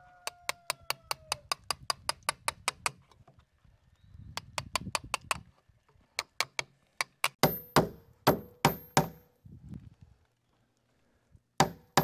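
Hammer tapping a chisel to clean up a chiseled recess in wood: runs of quick light taps, about seven a second, then a few harder strikes with a metallic ring in the second half and one more near the end.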